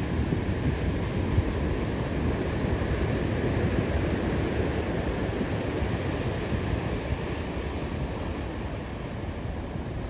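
Ocean surf breaking and washing in as a continuous roar of whitewater, with wind buffeting the microphone.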